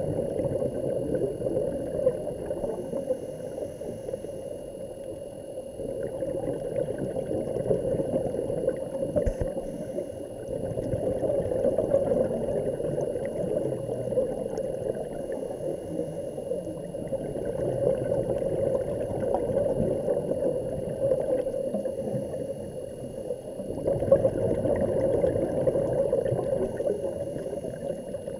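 Muffled underwater water noise, swelling and easing every few seconds, with faint steady high tones above it.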